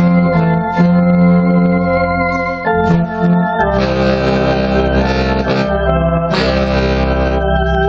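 A slow hymn played on trumpet and baritone saxophone in long held notes, the chord changing a little before three seconds in and again shortly after, when deep low notes come in.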